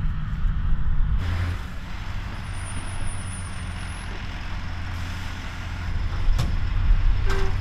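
Diesel engine of the Tatra truck carrying a Bureviy rocket launcher, running with a steady low rumble that changes abruptly about a second in. A short knock comes near the end.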